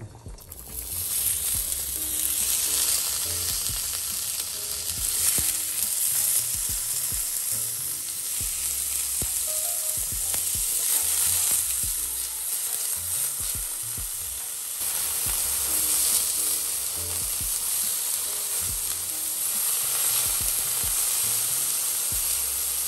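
Tofu slices sizzling in hot oil in a frying pan. The sizzle starts suddenly as they go into the pan and carries on steadily as they brown.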